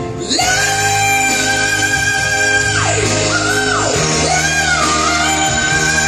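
A singer belting long, high sustained notes that each end in a steep slide down, over an electric guitar and band backing.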